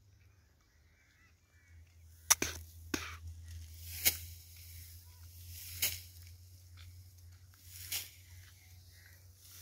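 Dry harvested crop stalks crackling and snapping as bundles are carried and heaped, in five sharp bursts beginning about two seconds in, over a low steady hum.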